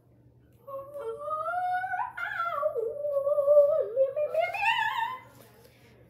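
A girl humming one long, wavering wordless note that rises in pitch near its end.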